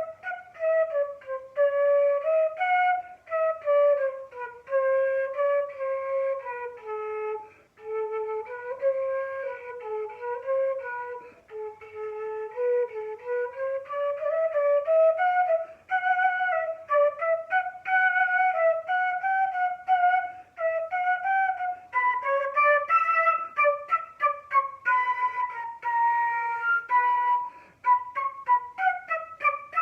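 A solo flute plays a melody of short, detached notes. It starts in the middle of its range, drops lower twice, then climbs and ends high. The changes of register are cues: low notes mean crouch, high notes mean raise your hands.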